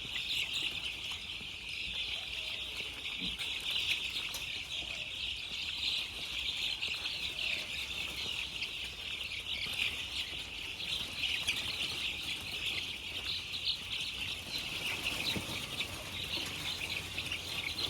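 A large flock of caged chickens chirping all at once: a dense, unbroken chorus of high peeps.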